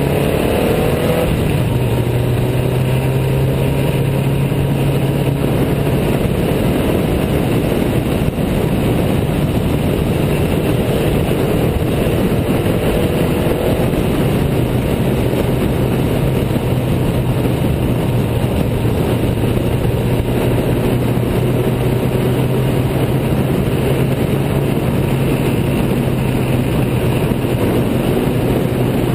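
Riley 12/4 Special's four-cylinder engine running hard at a steady speed, heard on board under a heavy rush of wind and road noise. The engine note drops briefly about a second in, then holds even.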